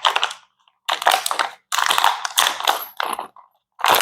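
A plastic bag of metal assembly hardware being handled and opened: crinkling plastic and rattling screws and bolts, in several short bursts.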